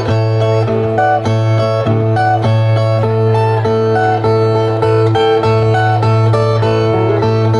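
Two repentistas' ten-string Brazilian violas playing the instrumental interlude between sung verses of a cantoria de repente: a repeating plucked figure over a steady low drone.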